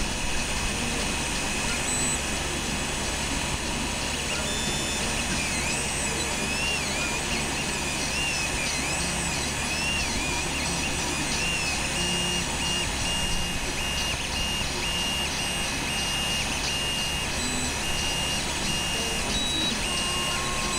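Creality Ender 3 Pro 3D printer running mid-print: a steady whir of its fans under the whine of its stepper motors. The whine glides up and down in pitch in the first half, then becomes short, even-pitched notes that start and stop, as the print head moves across the layer.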